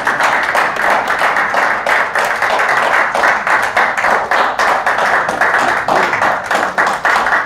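A crowd applauding: many hands clapping steadily and densely.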